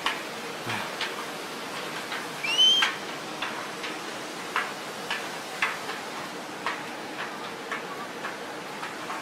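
Hooves of laden pack donkeys and footsteps knocking unevenly on the steel-mesh deck of a suspension bridge, about one or two knocks a second, over a steady hiss. A short rising whistle sounds about two and a half seconds in.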